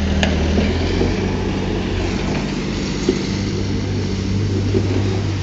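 Diesel engine of heavy earthmoving machinery running steadily, with a couple of brief clicks.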